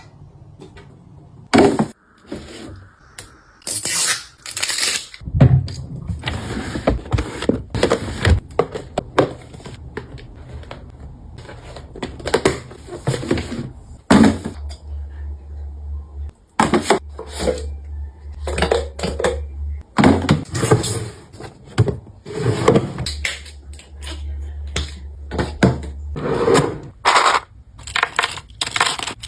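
Toiletry bottles and containers being handled, set down and moved about in a cabinet: irregular knocks, clatters and scrapes, one after another.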